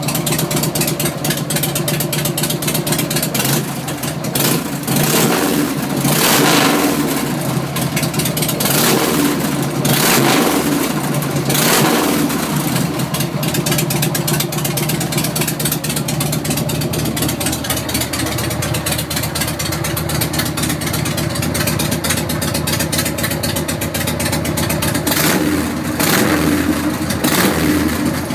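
Motorcycle engine idling steadily, revved up in several short throttle blips in the first half and again near the end.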